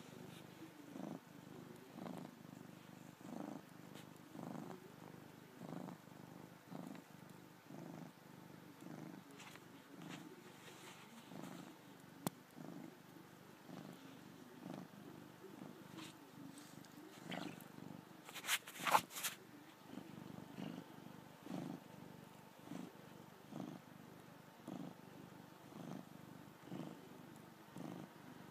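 Domestic cat purring steadily, the rumble swelling and fading about three times every two seconds as it breathes in and out. A few sharp clicks come about two-thirds of the way through.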